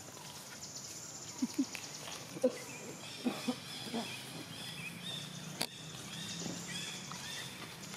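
Forest ambience: a steady high insect buzz, with repeated bird chirps from about three seconds in and a few short, faint calls in the first half. A single sharp click comes a little past halfway.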